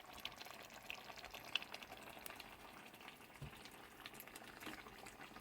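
Faint bubbling and popping of a pot of beef stew simmering with freshly added dumplings, an uneven scatter of small ticks over a soft hiss. A soft low knock about three and a half seconds in.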